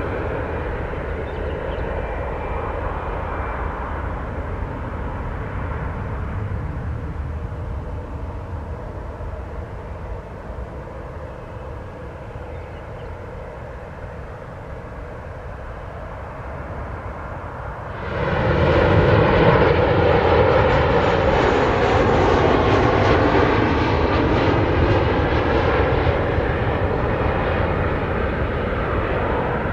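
Airliner jet engines: a steady whine with a low rumble that slowly fades for the first two-thirds. About two-thirds of the way through it switches abruptly to a much louder jet rumble and roar from a Boeing 737 on final approach, which holds to the end.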